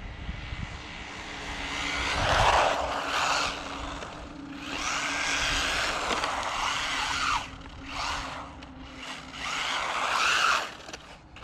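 Electric RC drift truck (MJX Hyper four-wheel drive) driving fast on pavement: three surges of tyre noise and motor whine, about two, five and ten seconds in, the whine rising and falling as it passes.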